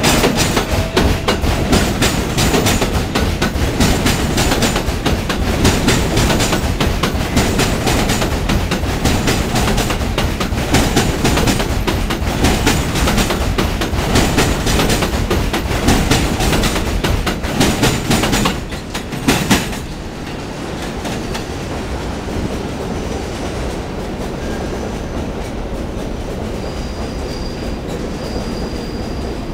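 New York City subway train passing close, its wheels clattering rapidly over the rail joints. The clatter stops suddenly about 19 seconds in, leaving a steadier, quieter rumble with a faint high wheel squeal near the end.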